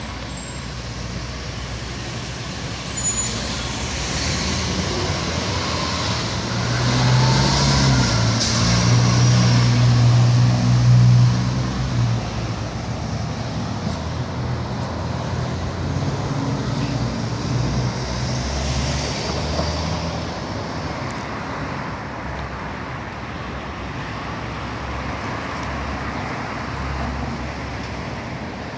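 City street traffic driving past, with one heavier vehicle's engine hum swelling loudest about seven to twelve seconds in, then fading back into steady road noise.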